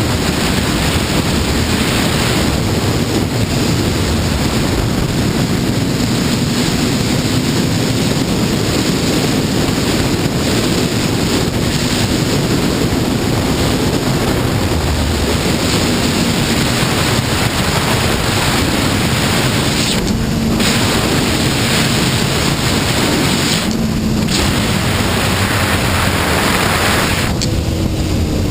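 Heavy wind rush on the microphone while riding a Honda CBR954RR sportbike, with the engine's steady tone faint underneath. The rush eases briefly three times in the last ten seconds.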